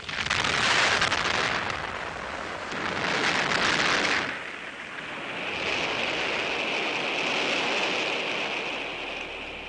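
Rushing noise of a rocket exploding in flight. It swells twice in the first four seconds, then settles to a steadier hiss that fades near the end.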